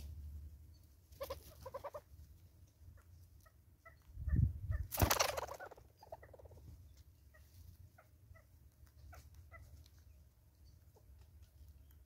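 Southern red-billed hornbills giving a series of short clucking notes. About four to five seconds in there is one loud burst of noise with a low thump, fitting a hornbill flying in and landing on the stump.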